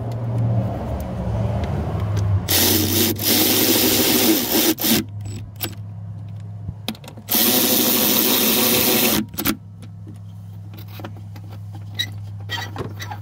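Cordless power tool spinning a socket on an extension in two bursts of about two seconds each, running the mounting bolts of a new EGR valve down after they were started by hand. Small clicks of tool handling fall between the bursts.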